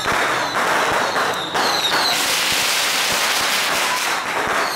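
Strings of firecrackers going off in a rapid, dense crackle that thickens about two seconds in.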